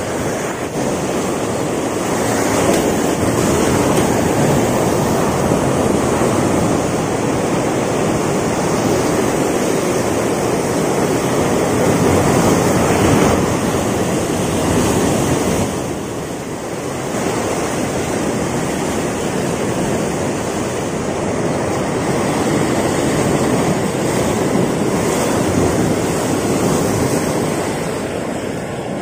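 Sea surf breaking and washing around rocks, a loud, continuous rush that swells and eases as the waves come in.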